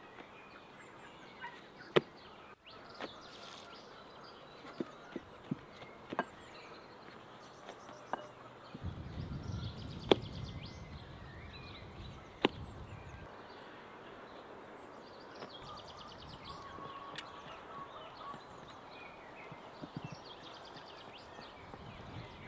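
Outdoor ambience with small birds chirping, broken by a few sharp knocks, the loudest about two, ten and twelve seconds in, and a low rumble between about nine and thirteen seconds in.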